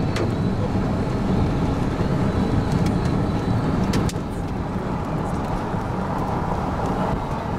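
Steady road and engine noise of a car heard from inside the cabin while driving, a low rumble with a few sharp ticks; it drops slightly in level about four seconds in.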